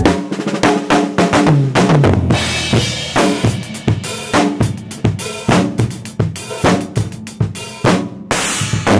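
Acoustic drum kit being played: a run of quick, irregular hits on kick, snare and toms, with cymbal crashes ringing over them at times.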